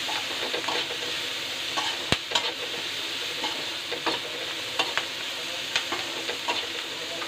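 Chopped onion and capsicum sizzling in oil in a kadai as a metal spatula stir-fries them, with irregular scrapes and taps of the spatula against the pan; the sharpest tap comes about two seconds in.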